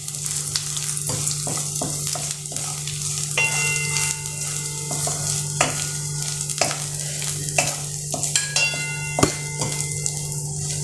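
Grated coconut, green chillies and sesame seeds sizzling in hot oil in a steel kadhai, stirred with a wooden spatula that scrapes and taps against the pan: a tempering (phodni) being cooked.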